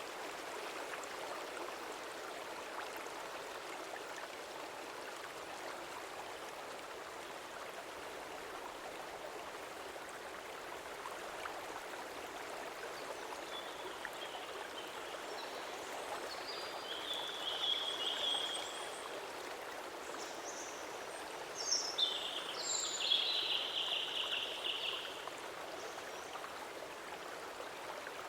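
Stream flowing with a steady rushing sound. From about halfway in to near the end, a bird calls in several short, high chirping phrases over the water.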